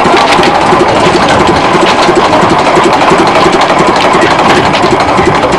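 Small narrow-gauge locomotive's engine running close by, with a fast, even beat and light mechanical clatter.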